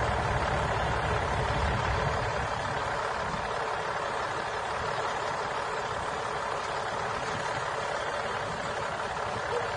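A large engine running steadily, typical of the heavy lifting machinery hoisting the wrecked aircraft. Its low rumble eases about three seconds in.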